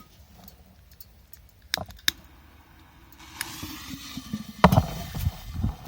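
Two sharp clicks, as of a lighter, then a P200 firecracker's fuse hissing as it burns, followed from past the middle by a run of irregular heavy thumps.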